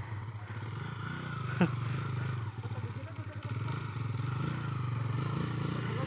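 Dirt bike engine running steadily at low revs as the bike pulls away through soft beach sand. A brief sharp sound comes about a second and a half in.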